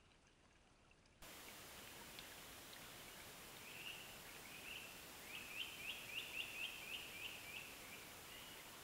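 A bird singing faintly over steady trail-camera microphone hiss: a series of about a dozen quick rising notes, roughly four a second, swelling and then fading over a few seconds.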